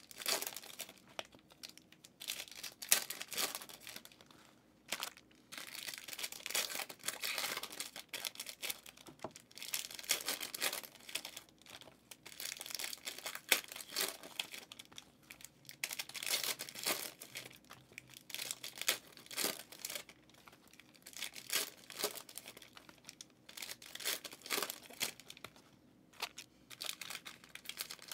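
Foil wrappers of 2023 Panini Prizm football hobby packs crinkling and tearing as they are ripped open and handled, in uneven crackling bursts with short pauses.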